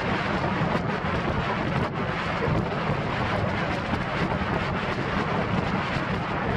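Wind buffeting the microphone and water rushing and splashing around a banana boat towed at speed over the sea, a loud, steady rush with a heavy low rumble.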